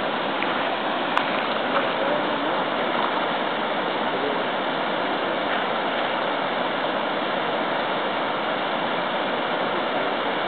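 Steady rush of flowing river water, even and unchanging, with one faint click about a second in.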